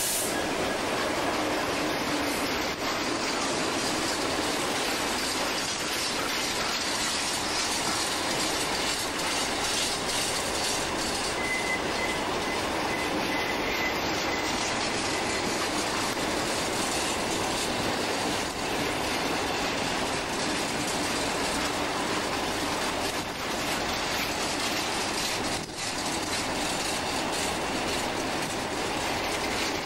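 Freight train wagons rolling past: a steady rumble of steel wheels on the rails with clickety-clack over the joints, and a brief thin wheel squeal about twelve seconds in.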